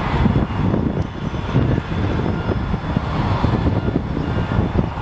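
Wind buffeting the camera's microphone: a loud, gusting low rumble.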